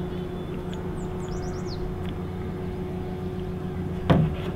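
Steady low mechanical hum, like a distant engine running, with a bird giving a quick run of short falling chirps about a second in. A single sharp knock near the end is the loudest sound.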